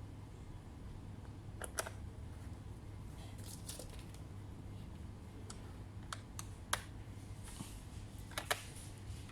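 Scattered sharp plastic clicks and taps from a laptop being handled and worked on, a few at a time at irregular spacing, over a steady low hum.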